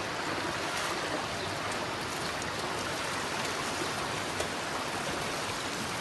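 Water rushing and splashing down the concrete alley of a cow shed in a steady flow: a flush-cleaning system washing the floor with water pumped from a settlement tank and released at the top of the shed.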